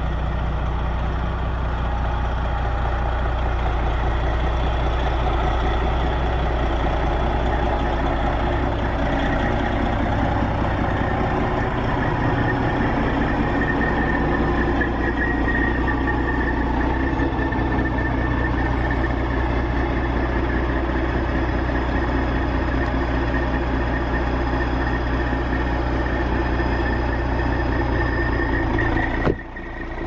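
Cab-over semi truck's diesel engine idling steadily, with a deep, even rumble.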